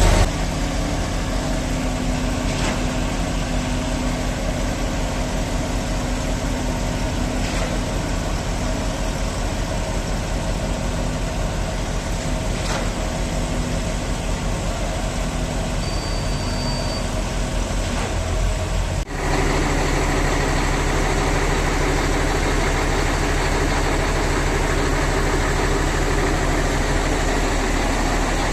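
Heavy diesel engine running steadily, with faint ticks about every five seconds; about two-thirds through the engine sound changes abruptly to a slightly louder, lower drone.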